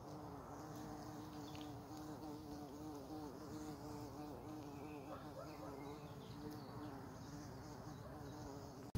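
A bumblebee buzzing in flight low over grass: a steady hum that wavers slightly in pitch as it moves.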